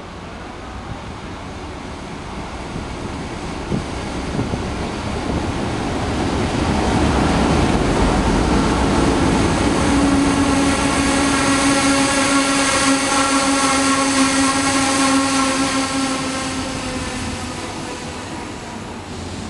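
A DF11 diesel-electric locomotive hauling a passenger train slowly through a station. The rumble grows as it approaches, and as the locomotive passes about ten seconds in its engine adds a steady hum that sinks slightly in pitch. The sound then eases as the coaches roll by.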